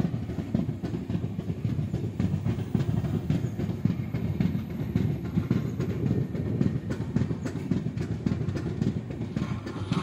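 Passenger train coach running along the track, heard from an open window inside the coach: a steady low rumble with continual rattling and light clicking from the wheels and carriage.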